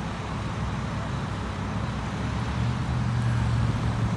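Low rumble of a motor vehicle engine amid road traffic, growing louder in the second half.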